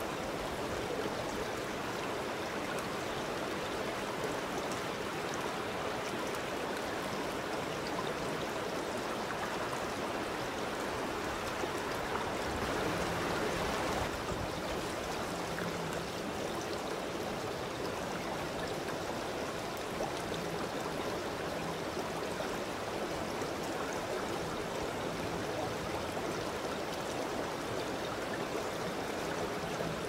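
Small shallow brook running steadily over its bed, with continuous babbling and splashing of water; it swells slightly for a moment about halfway through.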